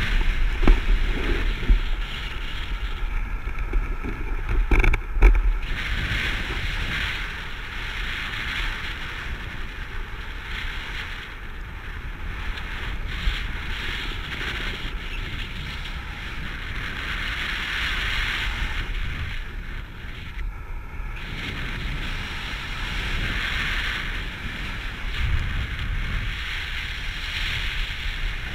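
Airflow rushing over the action camera's microphone in paraglider flight: a steady windy hiss, with heavier low buffeting and a few thumps in the first five seconds.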